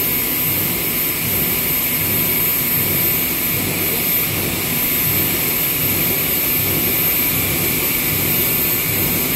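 PP meltblown fabric production line running: a loud, steady rushing of machinery and air, with a thin steady high whine over it.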